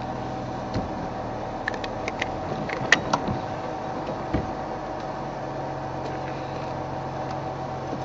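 Safari vehicle's engine running steadily with a low hum as it creeps over rough ground, with a few sharp clicks and knocks between about one and a half and four and a half seconds in.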